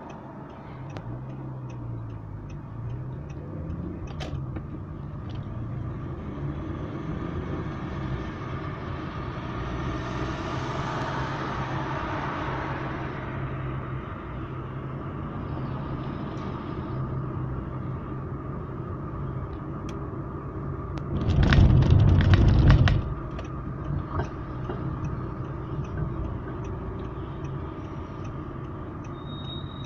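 A car's engine and road noise heard from inside the cabin as it drives through town, the engine note rising as it pulls away at the start. About two-thirds of the way through, a loud burst of noise lasts about a second and a half. A faint regular ticking runs underneath.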